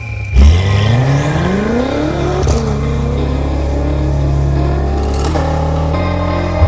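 A supercar engine revving up hard, its pitch climbing for about two seconds, then holding steady at high revs. The sound shifts abruptly twice near the end.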